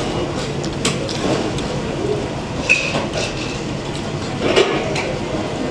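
Restaurant dining-room clatter: a steady noisy background with scattered clinks of cutlery and dishes, one sharp ringing clink about halfway through.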